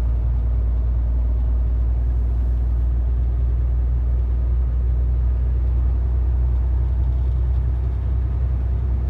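Steady low drone of a semi-truck's engine and tyres heard inside the cab while cruising on a motorway, a constant rumble that does not change in pitch.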